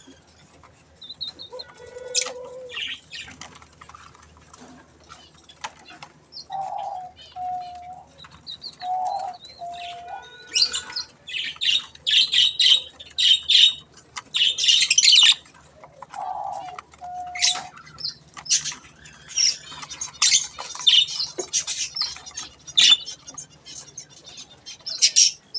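Budgies chattering: a dense, busy mix of short chirps and scratchy warbling, with wing flutters. It grows louder and busier about halfway through. A short, lower two-note call repeats a few times among the chatter.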